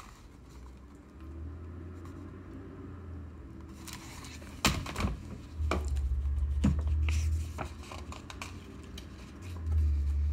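Handling noise from a picture book being moved and its pages turned: a few soft knocks and rustles, with stretches of low rumble.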